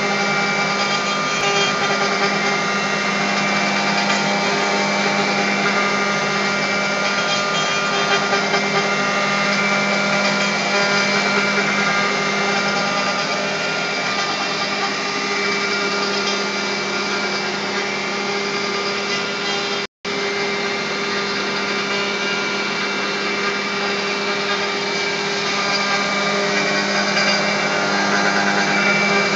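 CNC router spindle running steadily while milling: a constant whine of several steady tones over a noisy hiss, cutting out for an instant about twenty seconds in.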